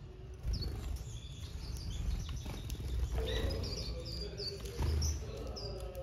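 Small aviary finches chirping: many short, high chirps that drop in pitch, coming thickest in the second half, over a steady low rumble.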